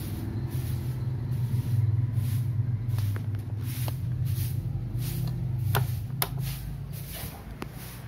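Maspion orbit ceiling fan running with a steady electric motor hum and a hiss of moving air that swells about twice a second. Two sharp clicks about six seconds in, as its speed control is switched from low to full speed.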